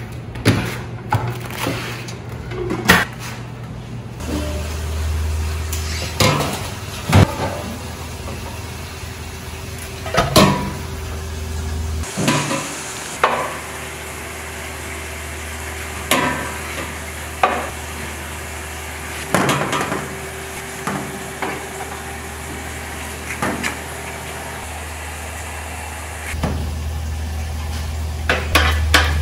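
Cook's paddle stirring and scooping cooked multigrain rice in a metal rice-cooker pot, with scattered knocks and clanks of paddle and lid against the pot. A steady low hum runs underneath.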